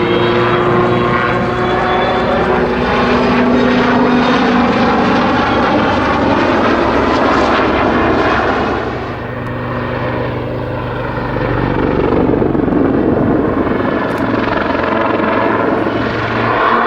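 Army Air Corps Westland Lynx helicopter flying a display: loud rotor and twin turboshaft engine noise, its pitch sliding as it moves, easing off about nine seconds in and building again near the end.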